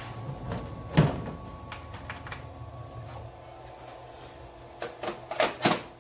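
A CNC-converted Grizzly G0704 mill cutting aluminium with a 1/4-inch three-flute carbide end mill, its belt-driven water-cooled spindle and cut giving a steady tone that stops about three seconds in. Sharp clicks and clacks run through it, the loudest about a second in and several close together near the end, as the tool milling chips fly and strike around the work.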